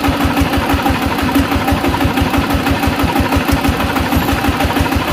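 Changfa 1115 single-cylinder diesel engine running steadily at idle with a quick, even exhaust beat.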